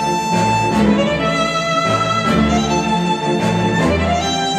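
Instrumental music with a sustained string melody over recurring bass notes and a regular beat, played back through KEF R3 bookshelf speakers driven by a Marantz PM7000N integrated amplifier.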